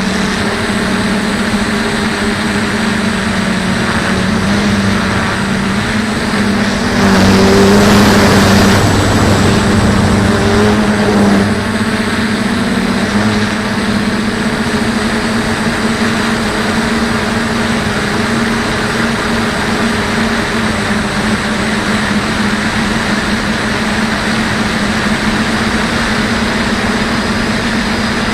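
Electric motors and propellers of a DJI F450 quadcopter in flight, heard from its onboard camera: a steady humming drone. It grows louder for about four seconds, starting about a quarter of the way in, then settles back.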